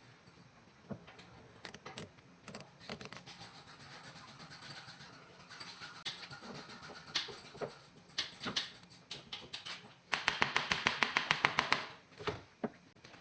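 Hand tools clicking and tapping on metal during CV joint work on a van driveshaft. About ten seconds in there is a louder burst of rapid, even clicking, roughly nine a second, that lasts about two seconds.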